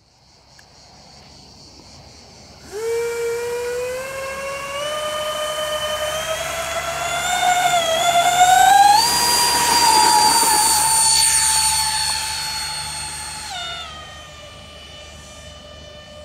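Electric ducted fans of a Freewing Su-35S model jet spooling up for takeoff: a high whine starts suddenly a few seconds in and climbs steadily in pitch to a peak at full power, holds there, then drops a step in pitch near the end as the jet climbs away.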